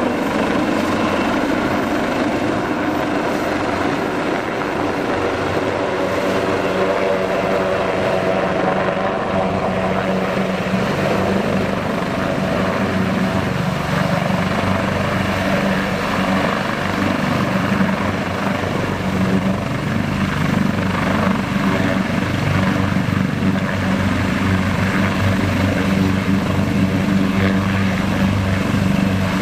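AgustaWestland AW189 search-and-rescue helicopter's rotors and twin turbine engines running loudly, with a steady low rotor thrum and rapid blade chop, as it comes down low over grass and lands.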